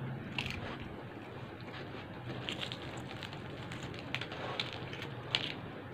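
Faint crackling and scattered small clicks of a crispy, breaded fried chicken crust being pulled apart by hand.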